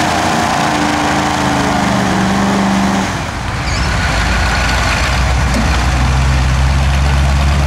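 Off-road race trucks' engines revving hard under load as they drive through deep mud, over a broad rushing noise. The sound changes abruptly about three seconds in to a deeper, low engine note that holds to the end.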